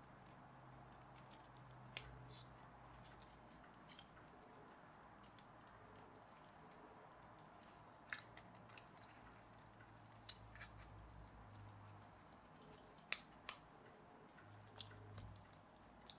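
Faint handling of a pullback toy plane kit's press-fit parts: small sharp clicks and taps as pieces are pushed and slotted together by hand, coming singly or in close pairs every second or two over a low steady hum.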